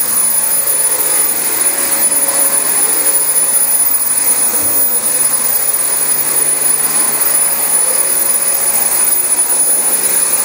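Dyson DC25 upright vacuum cleaner running steadily on thick carpet: a constant rush of air with a steady high-pitched motor whine.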